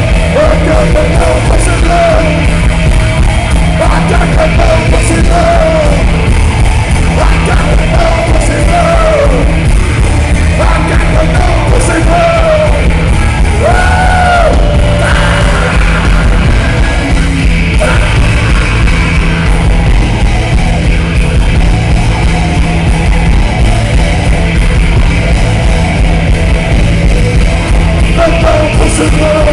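A live rock band plays loudly, with electric guitar and drums over a heavy, steady low end. High, bending notes wail on top through the middle of the passage.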